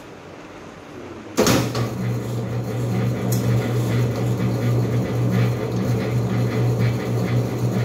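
A 60-litre planetary mixer is switched on with a clunk about a second and a half in, then its motor runs with a steady hum.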